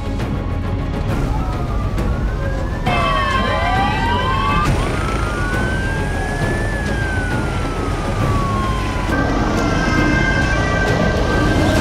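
Several emergency-vehicle sirens wailing at once, their rising and falling pitches crossing each other, over a steady low rumble.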